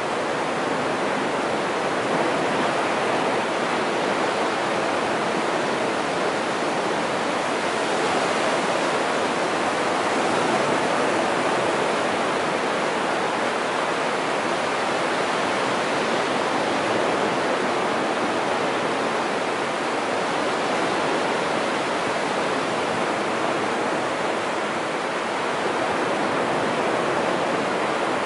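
Low surf of the Sea of Japan breaking and washing up a flat sand beach: a steady rush of waves that swells and eases slowly.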